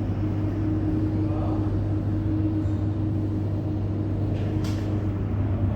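A steady low mechanical rumble with a constant hum, and a short hiss about four and a half seconds in.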